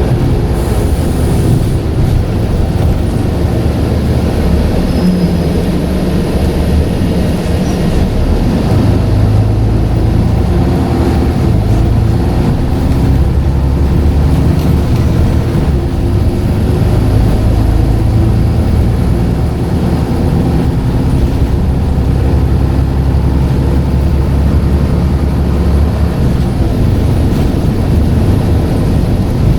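Scania N94UD double-decker bus's diesel engine running under way, its low note strengthening and easing several times as it pulls and eases off, with a faint high turbo whistle at moments.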